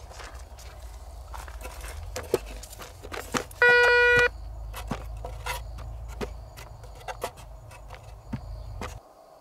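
Metal detector with a red search coil swept over a dug hole, giving one steady beep a little under a second long about four seconds in, its signal for metal under the coil. Scattered clicks and knocks of the coil and handling sound over a low rumble that cuts off near the end.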